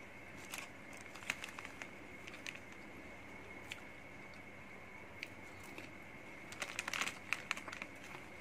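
Foil snack wrappers crinkling and crackling as they are handled, in scattered bursts with a denser flurry near the end.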